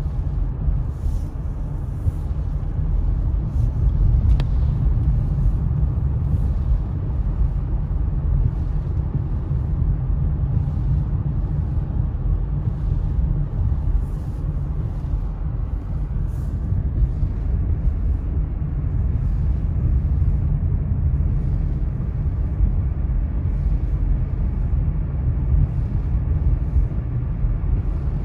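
Steady low rumble of a car driving on a wet highway, heard from inside the cabin: road and tyre noise with the engine underneath.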